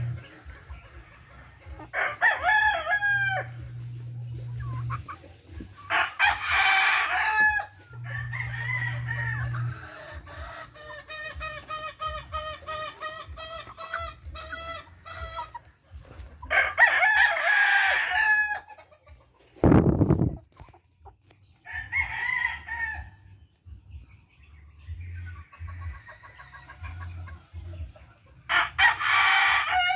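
Heritage chickens feeding: a rooster crows several times, each crow loud and drawn-out, between long runs of rapid clucking from the hens. One brief, low thump comes about two-thirds of the way through.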